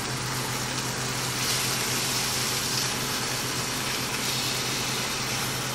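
Chuck roast sizzling as it sears in a hot cast-iron skillet, the sizzle swelling about a second and a half in as the meat is turned onto its second side. A steady low hum runs underneath.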